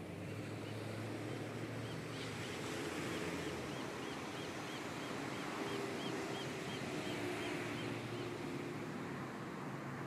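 Small ocean waves breaking and washing up a sandy beach, over a steady low hum of distant road traffic. A faint, high, evenly repeated chirp of about three a second sounds through the middle.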